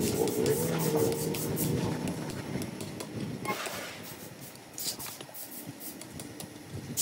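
Irregular metal scraping and light clicks of a screwdriver tip working at a 100cc motorcycle engine's clutch assembly as it is fitted on its shaft, louder in the first couple of seconds.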